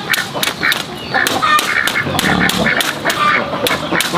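Domestic ducks quacking repeatedly, over the quick, regular scraping strokes of a machete blade shaving thin bamboo strips.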